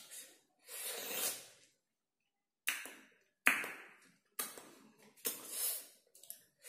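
Close-up eating sounds of small crisp red hei-yai fruits being bitten and chewed: a string of sudden crunches, about one a second, each fading quickly.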